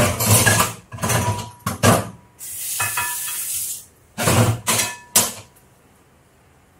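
Dishes and a metal pot clattering and ringing in a kitchen sink, with the tap running in a steady hiss for about a second and a half in the middle, then a few more clatters.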